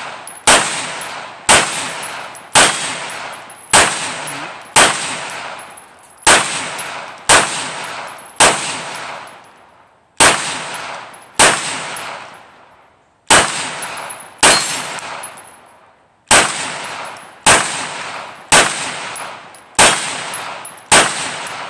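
Canik TP9SFX 9mm pistol firing a slow string of about seventeen shots, mostly about one a second with a few longer pauses, each crack trailing off in a long echo.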